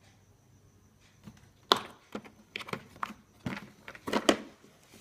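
Mini rotary tool kit's hard carry case being handled: a string of irregular clicks and knocks, the sharpest about two seconds in and again near the end.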